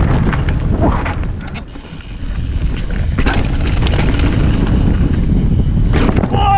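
Mountain bike ridden fast down a dirt trail, heard from a camera on the bike: heavy wind rumble on the microphone and tyre noise, with sharp clicks and rattles from the bike. The noise drops briefly about two seconds in.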